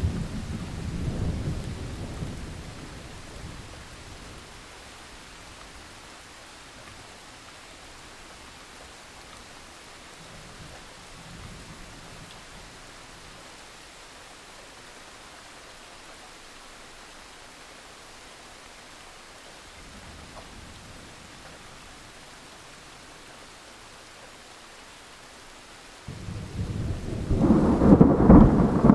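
Thunderstorm: steady rain throughout, with a rumble of thunder dying away over the first few seconds and faint distant rumbles in the middle. Near the end a loud peal of thunder breaks in suddenly and keeps going.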